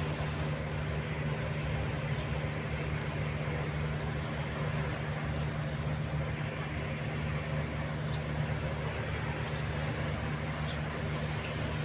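Steady low mechanical hum, like a motor or engine running, under a constant hiss.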